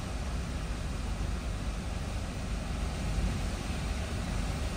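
Hurricane-force wind and rain buffeting a car, heard from inside the cabin. It is a steady rushing noise with a heavy low rumble that wavers with the gusts.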